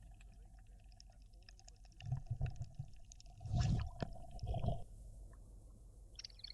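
Water splashing and gurgling in three short bursts about two, three and a half and four and a half seconds in, over a faint steady hum and light scattered ticking.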